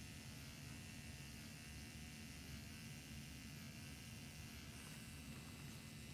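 Faint, steady electric hum and buzz from running equipment, with a faint tone that wavers up and down about once a second.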